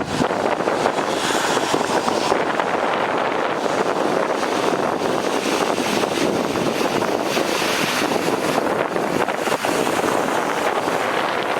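Steady rushing noise of tropical-storm wind buffeting the microphone, mixed with the wash of water.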